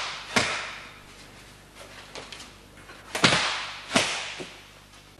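Sharp slapping hits of hands and arms striking and trapping in a martial arts drill: a loud one just after the start and two more close together past the middle, with a few lighter ones between, each followed by a ringing echo off the hall.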